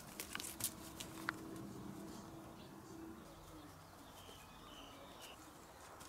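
Faint rustling with a few light clicks in the first second or so as a cat paws among plant stems, then faint bird calls in the background.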